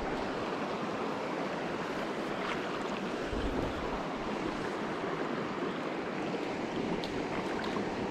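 Steady rushing of a shallow creek flowing over cobbles.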